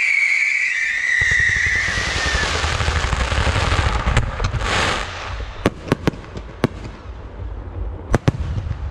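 Fireworks: ground fountains hissing loudly with a high whistling tone that slowly falls in pitch over the first couple of seconds, a sudden rush of hiss about five seconds in, then sharp single bangs of shells, four in the middle and two close together near the end.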